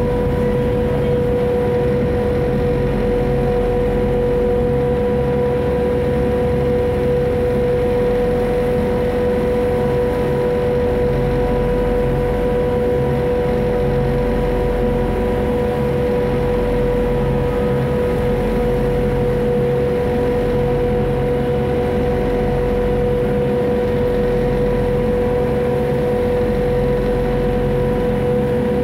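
Ferry boat engine running steadily while under way: a constant drone with a steady whine over it, unchanging throughout.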